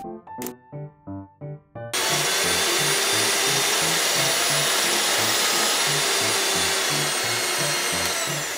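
A small electric motor, like a mini kitchen appliance's, switched on abruptly about two seconds in and running with a steady, loud whir, over background music with a steady beat.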